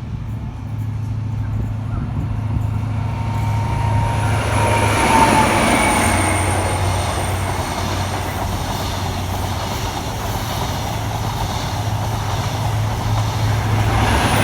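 LNER High Speed Train with class 43 diesel power cars passing. The sound builds to a peak about five seconds in and stays loud, with a faint high whine that drops in pitch as the train goes by.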